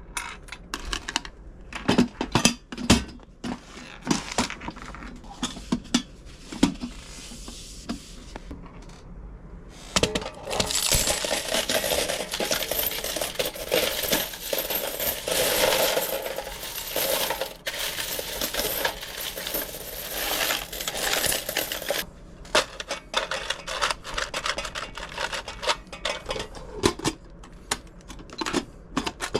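Repeated clinking and clattering of small hard objects, with about twelve seconds of steady rushing noise in the middle of the stretch.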